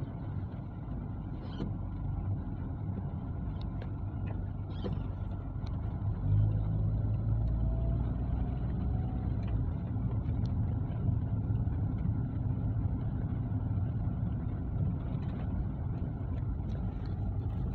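Car engine and road noise heard from inside the cabin as the car drives slowly, a steady low rumble that grows a little louder about six seconds in.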